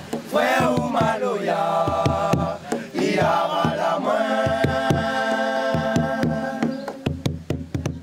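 Several men singing together in a chant over hand drums beating a steady rhythm. Near the end the voices drop away and the drum strokes carry on.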